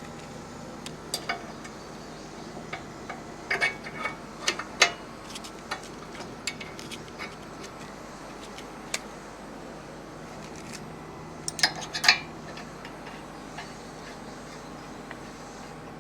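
Irregular metallic clicks and clinks of hand tools working on a disc brake caliper. They come in clusters about a second in, around four to five seconds in, and again near twelve seconds, over a steady low hum.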